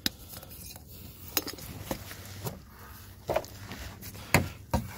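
Scattered metallic clinks and knocks, about half a dozen, as a new spin-on oil filter is handled and fitted onto its housing on the engine sump.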